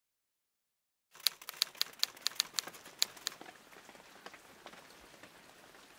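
Typewriter keys clacking, about a dozen quick strikes over two seconds, starting about a second in, then a faint steady hiss.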